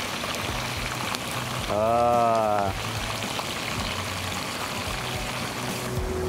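Hot oil sizzling steadily as mackerel deep-fries in a wok, with hot oil ladled over the fish. About two seconds in, a brief pitched tone rises and falls over about a second.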